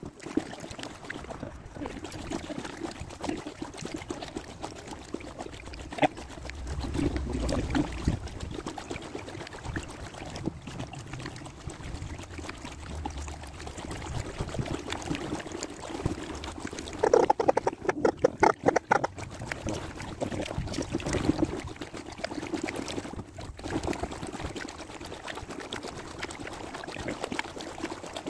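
Kayak paddle blades dipping into canal water, with water running and dripping off the blades between strokes. A short run of quick taps comes about two-thirds of the way through.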